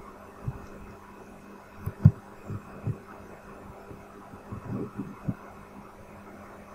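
A steady low hum with scattered soft, low thumps at irregular intervals, several bunched together about two seconds in and again around five seconds in.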